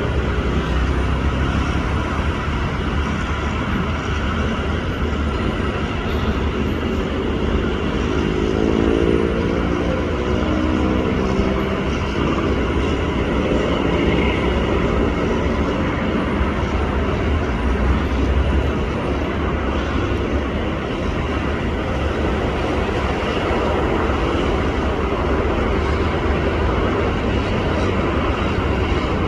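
Steady engine and traffic-type rumble, with a motor rising in pitch for a few seconds about eight seconds in.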